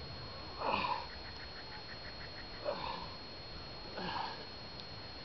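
Three short, breathy grunts of effort, each falling in pitch, from a man straining to dig a geoduck clam out of waterlogged sand by hand with his arm deep in the hole.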